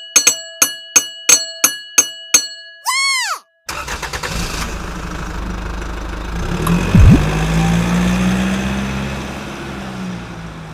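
A bell rings in quick repeated strikes, about three a second, like a railway crossing bell, then breaks off into a short rising-and-falling swoop. After a brief gap, a vehicle engine runs steadily, with a sharp thump about seven seconds in, and fades near the end.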